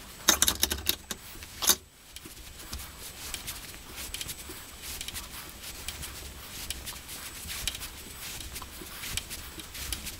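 Hand tap in a tap wrench threading a metal part held in a bench vice: a cluster of sharp metal clicks and rattles early on, one more loud click just under two seconds in, then a run of light irregular ticks as the tap is turned.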